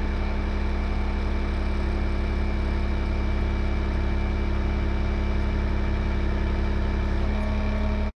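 A vehicle engine running steadily with a deep hum and a few steady tones; the pitch shifts slightly near the end, then the sound cuts off abruptly.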